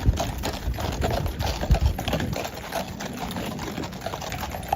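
Horses' hooves clattering on a paved street in a fast, irregular run of clip-clops, with a couple of heavy low thumps.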